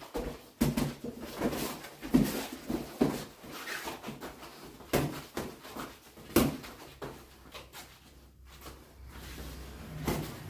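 Boxing gloves landing punches in a sparring drill: irregular sharp slaps, the strongest about half a second, two, five and six and a half seconds in, with softer knocks between.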